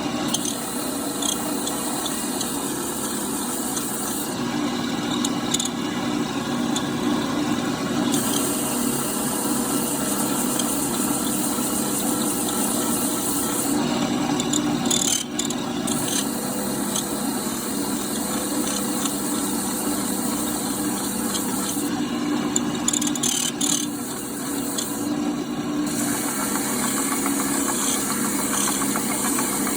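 Electric power sander running steadily while a wooden turkey call is finish-sanded, a motor hum under a gritty hiss. The hiss fades and comes back several times.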